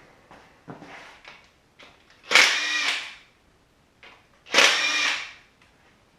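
Handheld power tool run in two short bursts about two seconds apart, each with a motor whine, after a few light handling clicks.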